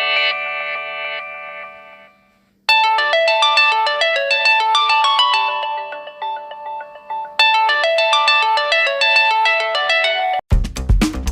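LG K5 phone ringtones: one ringtone melody fades out, then after a brief gap a different melodic ringtone plays through twice. Near the end a drum-heavy beat cuts in.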